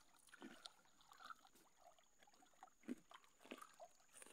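Near silence: faint scattered ticks and a thin steady high tone in the background.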